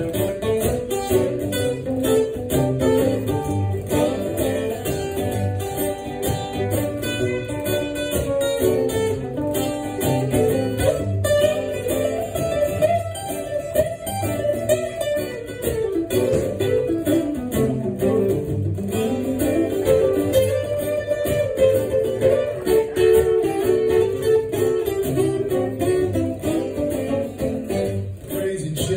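Steel-string acoustic guitar played alone, an instrumental break of picked notes and chords with no singing.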